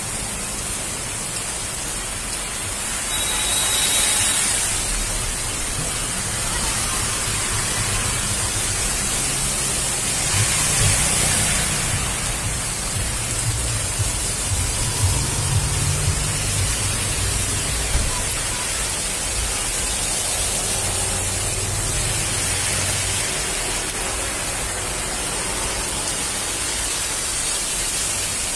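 Heavy rain falling on a street, a steady hiss. In the middle a passing auto-rickshaw adds a low engine rumble.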